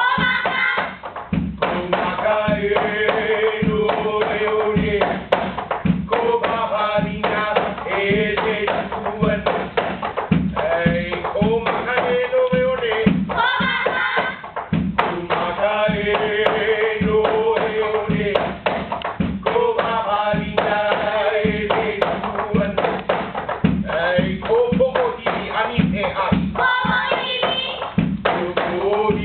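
Hawaiian chant (oli) for hula kahiko, a single voice intoning long held notes in phrases, over regular strikes on an ipu heke, a double gourd drum.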